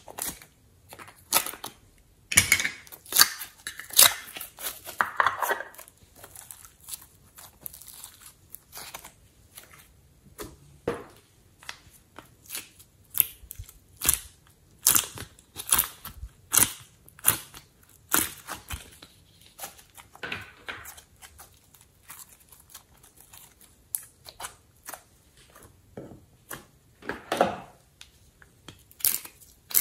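Stiff plastic slime containers and clay moulds being handled: irregular sharp clicks and crackles as lids are worked open and clay is pressed out of the moulds, with a few longer scraping, crinkling stretches.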